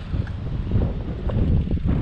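Wind buffeting the microphone: a loud, gusty low rumble that rises and falls unevenly.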